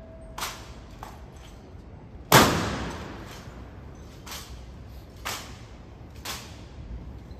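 Honor guard drill impacts: six sharp clacks spaced about a second apart. The one about two seconds in is much louder and rings out for about a second.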